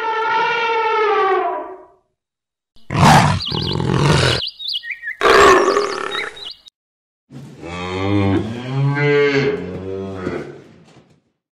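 An elephant trumpets once, then a leopard gives two harsh, rasping calls, then a cow moos in a long, wavering low call.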